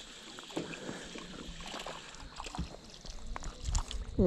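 Faint rustling and small clicks from handling a spinning rod and reel, with a louder rush of movement near the end as a bobber rig is cast.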